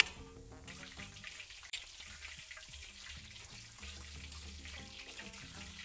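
Oil sizzling and crackling steadily as minced food fries in a wok. A single sharp metal clink, the spatula striking the wok, comes at the very start.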